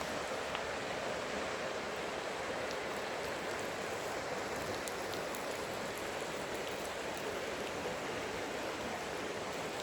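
Steady rushing of a low-flowing waterfall stream.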